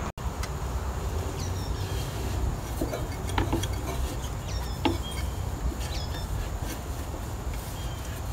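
A few light clicks and taps of the kerosene heater's metal wick-and-burner assembly as it is handled and seated onto the tank. Faint high chirps come and go over a steady outdoor background.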